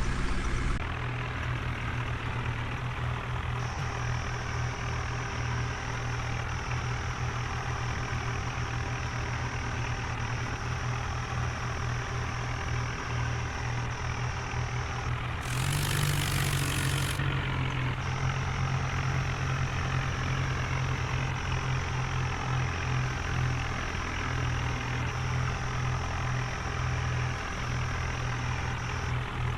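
Heavy diesel engine running steadily with a pulsing low rumble. About halfway through comes a short loud hiss, and after it the engine runs a little louder.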